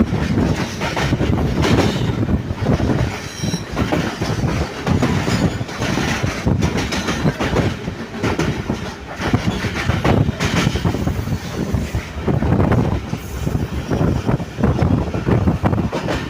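Railway train running on the track, its wheels clattering with many irregular knocks and squealing against the rails.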